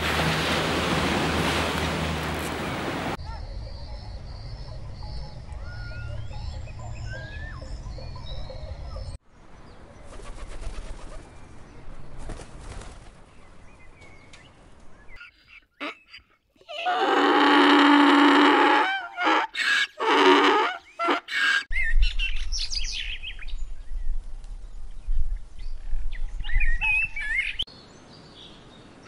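Assorted bird calls and chirps in a run of short, abruptly changing clips. The loudest is a pitched call lasting about two and a half seconds just past the middle, followed by several shorter calls.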